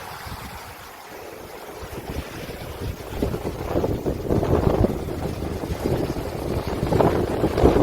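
Wind blowing over the sea, buffeting the microphone in irregular gusts; it is lighter at first and grows stronger about three seconds in.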